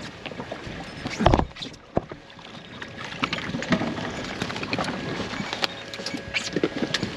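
Water lapping against an inflatable boat's hull with wind on the microphone, a heavy thump about a second in, and scattered light clicks of handling.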